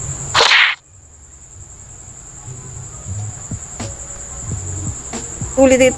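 Steady high-pitched insect chirring, crickets, running throughout, with a short loud hiss about half a second in.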